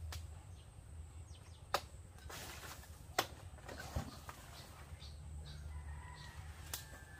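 Sharp snaps and crackling rustles of dry banana leaves and undergrowth being pulled and trampled, a few snaps about a second apart, over a low steady rumble.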